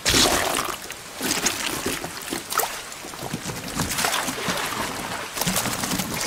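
Rain falling with water splashing and sloshing: a steady wash broken by several sudden splashes.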